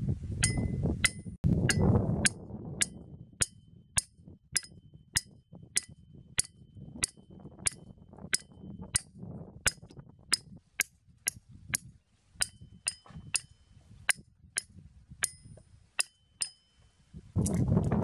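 The back of a hatchet head hammering thin metal stakes into the ground: a steady run of sharp, ringing clinks, about two a second. Wind rumbles on the microphone at the start and again near the end.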